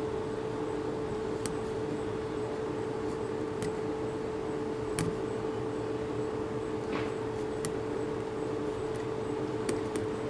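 Small handheld rotary tool of the Dremel type running at a steady whine, with a few light ticks, as it is used to take old paint off a doll.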